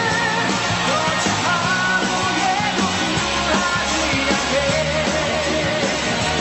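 Loud music with singing voices over a steady bass line.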